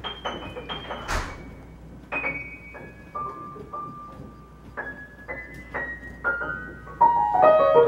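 Piano being played: slow single notes and short phrases that ring and fade, then a louder run of notes stepping downward about seven seconds in.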